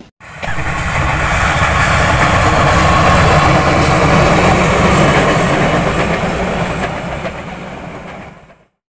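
Passenger train hauled by a diesel locomotive passing by: steady rumble and rattle of the wheels on the rails. It starts suddenly, is loudest in the middle as the locomotive and coaches go by, and fades out near the end.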